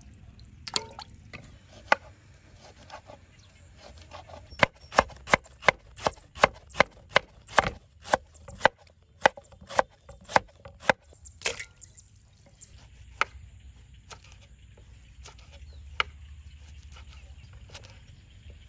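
Kitchen knife chopping through a root on a wooden cutting board: a steady run of sharp chops, about two to three a second, starting about four seconds in and lasting some seven seconds, with a few scattered knocks before and after.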